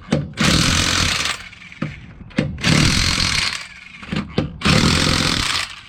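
Impact wrench running in three bursts of about a second each, tightening wheel lug nuts.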